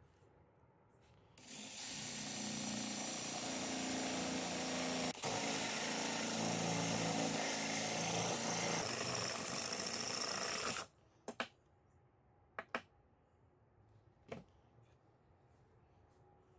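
DeWalt cordless drill with a spade bit boring a hole through the steel end plate of an old car oil filter, running steadily for about nine seconds with a brief stop near the middle. A few sharp clicks follow after it stops.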